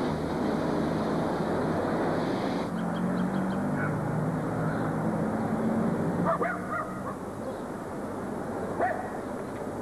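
A garden hose spraying water onto a wet floor, a steady hiss that cuts off about three seconds in. Then outdoor ambience with a low steady hum and a few short bird calls, the loudest about six and a half seconds in and another near the end.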